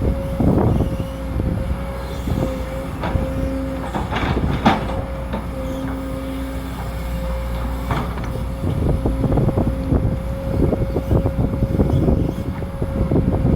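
Sumitomo SH210 hydraulic excavator running under load, a steady whine from its diesel engine and hydraulic pump. Over it come knocks and scraping clatter as it digs, one sharp knock about five seconds in and a run of clatter in the last few seconds.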